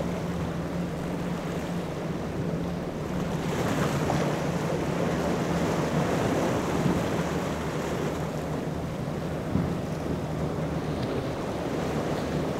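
A power boat's engine drones steadily and fades out about nine seconds in, under the constant noise of surf and wind buffeting the microphone.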